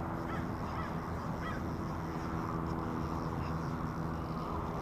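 Steady low engine hum with a few short bird calls in the first two seconds.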